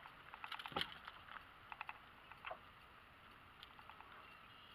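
A few light clicks and one knock in the first second or so, then scattered ticks over a faint steady hiss: fishing gear being handled in a small boat as a just-caught fish is dealt with.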